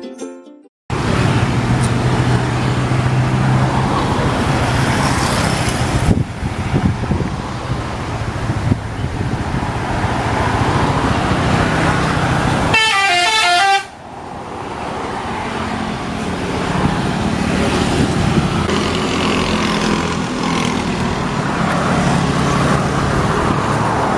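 A bus's engine running among traffic noise, with a brief, fast multi-note tune from its telolet horn about thirteen seconds in.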